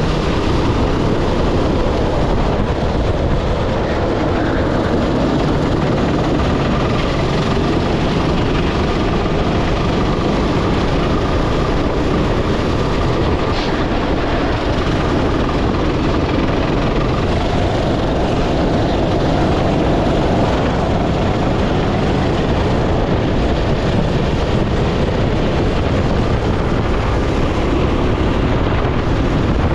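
Go-kart engine running hard around the track, its pitch rising and falling with the throttle through the corners, heard from an onboard camera under a dense, steady rush of noise.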